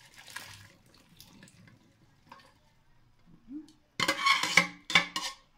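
Precooked pozole hominy and its cooking water poured from a pot into a pot of broth. A faint trickle turns, about four seconds in, into a loud splashing pour in two surges lasting about a second and a half.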